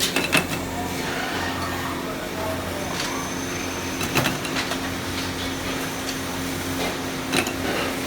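Steady machine hum in a rotor workshop, with a few sharp metallic clicks and knocks from parts being handled, the loudest near the start and about seven seconds in.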